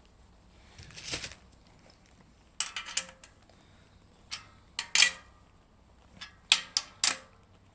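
Metal motorcycle springer-fork parts clinking and clacking as they are handled and set down: a short rustle about a second in, then about seven sharp, separate knocks.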